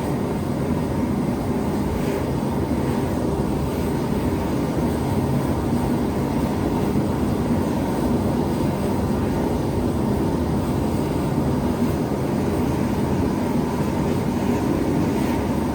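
Gas forge burners running, a steady rushing noise that holds at one level throughout.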